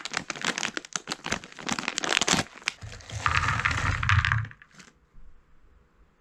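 Foil-lined plastic snack bag crinkling and tearing as it is opened. About three seconds in, small hard snack pieces are poured out of the bag onto a plate, rattling and clattering for about a second and a half.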